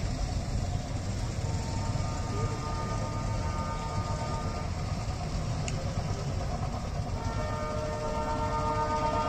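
Distant multi-tone horn of an approaching diesel locomotive. One long blast runs from about a second and a half in to about six seconds, and a second, louder blast starts around seven seconds, over a steady low rumble.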